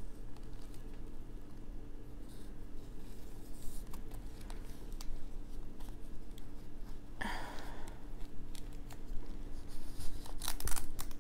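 Faint handling sounds of a potted plant on a wet sphagnum moss pole being lifted and held: light scratches, clicks and rustles, with a short rustle about seven seconds in, over a low steady electrical hum.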